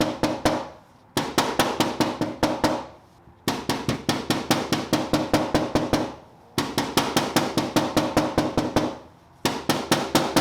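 Body hammer tapping rapidly on a steel car fender in four runs of quick strikes, about five or six a second, with short pauses between, the panel ringing after each blow. This is hammering down a high spot during paintless dent repair.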